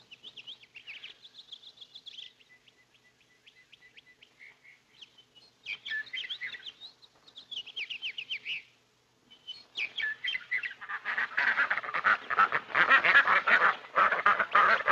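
Birds chirping in short phrases, then from about ten seconds in a flock of hens cackling and squawking, much louder and continuous.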